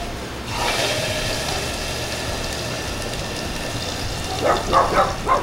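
Butane spraying from its can into a pot of hot water, a steady hiss that starts about half a second in and slowly fades. No bang follows: the butane does not set off a steam explosion.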